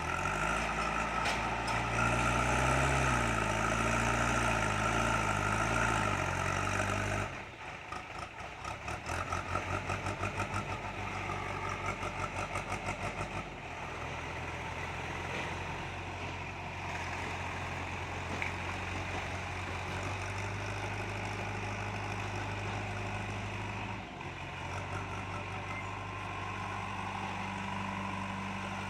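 Heavy construction-machine diesel engine running. It revs with its pitch rising and falling for about seven seconds, then chugs in a pulsing rhythm for several seconds, then runs steadily at an even speed.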